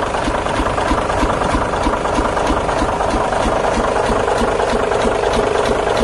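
Diesel engine of a 1997 Daewoo concrete mixer truck idling steadily, with an even knocking pulse of about five beats a second.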